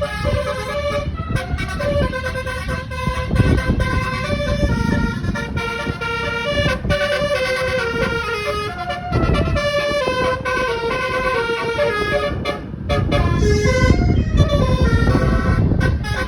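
A tour bus's 9-note telolet basuri multi-tone air horn playing a fast, stepping melody, note after note with short breaks, over a low rumble.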